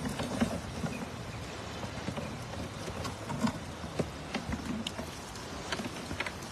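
Live fish flapping and slapping in a plastic crate and a wet cast net, with water splashing and dripping: an irregular patter of small wet slaps over a steady wash of noise.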